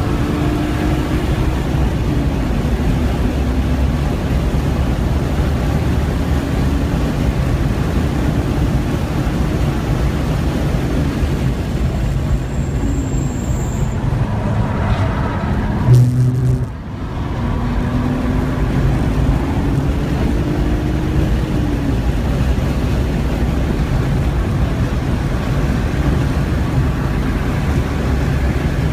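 Straight-six engine of a 1998 BMW E36 M3 sedan heard from inside the cabin at track speed, over road and wind noise. The engine note drops as the car slows for a corner about halfway through, a brief thump comes about 16 seconds in, then the engine climbs in pitch again through the gears as it accelerates hard.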